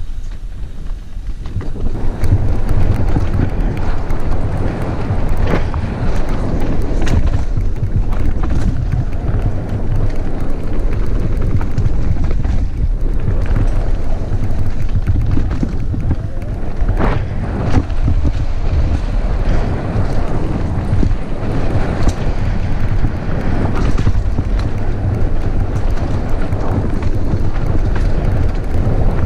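Wind rushing over the camera microphone and mountain-bike tyres rumbling on a dirt trail during a fast downhill run, with scattered sharp clacks from the bike over bumps.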